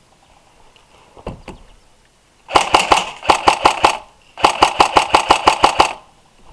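Airsoft electric rifle firing two bursts on full auto, about a second and a half each, rapid evenly spaced cracks at roughly seven shots a second. A couple of faint knocks come a second before the first burst.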